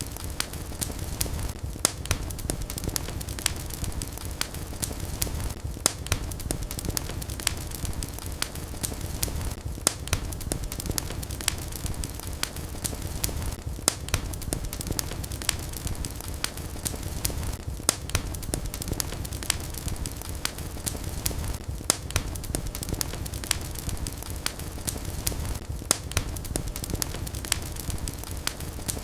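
Fire burning in a fireplace, crackling and popping with many sharp, irregular snaps over a low, steady rumble.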